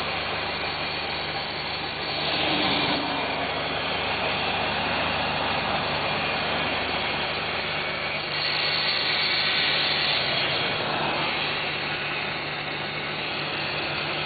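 Camaro's 3.8-litre V6 engine running steadily, with a brighter hiss swelling twice for a second or two. This is the unexplained noise the owner hears since the cold weather arrived.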